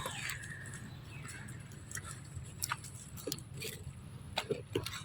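Baby monkey eating: scattered soft clicks and mouth smacks of chewing, with a few short squeaky sounds in the last two seconds, over a low hum.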